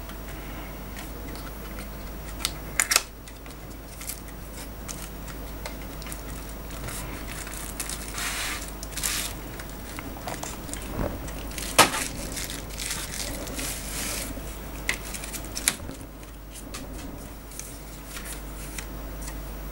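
Handling noise from unpacking a phone screen: a cardboard box and a bubble-wrap bag rustling and crinkling, with a few sharp clicks and taps, over a steady low hum.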